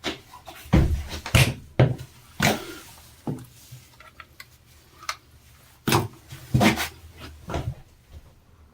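Irregular knocks and clunks of hard objects being handled and set down, about a dozen of them, loudest about a second and a half in and again around six to seven seconds in.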